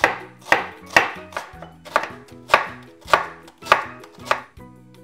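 Kitchen knife chopping an onion finely on a wooden cutting board: about nine sharp, even strokes, roughly two a second, stopping shortly before the end.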